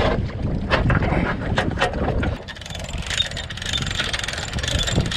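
Wind rumbling on the microphone, with splashing and sharp metal clanks as an aluminium tinny is hooked onto its boat trailer. From about halfway, a dense run of rapid clicking as the trailer's hand winch is cranked to pull the boat up.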